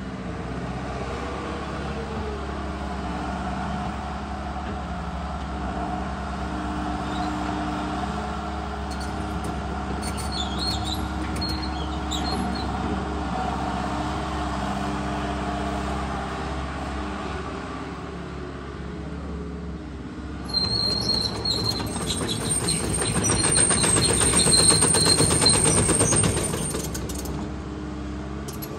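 Volvo ECR145D excavator's diesel engine running steadily as the machine works its way off a trailer. About 20 seconds in its steel tracks start clanking and squealing as it travels over gravel, growing louder, then easing near the end.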